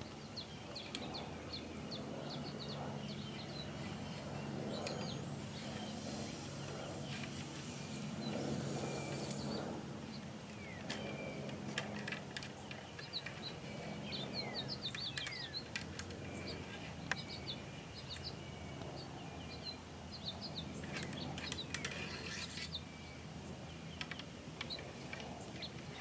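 Wild birds chirping in short, quick calls again and again over a faint steady low hum, with a few sharp light clicks scattered through.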